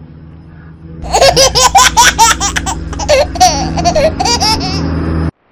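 High-pitched laughter, a rapid run of laughs starting about a second in over a steady low hum, cutting off abruptly just before the end.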